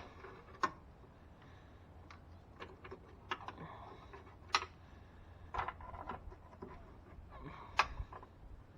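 A few light clicks and taps at irregular intervals, the loudest near the end, from parts and tools being handled while a vacuum pump is fitted to the engine, over a faint steady low hum.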